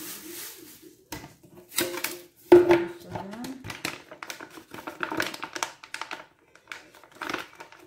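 Kitchen handling noises: irregular clicks, knocks and rustling, the loudest a sharp knock about two and a half seconds in.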